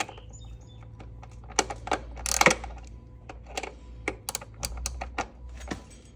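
Hand ratchet on an 8 mm socket clicking in short, irregular runs, with a few sharper metal taps, as a tight nut is worked loose.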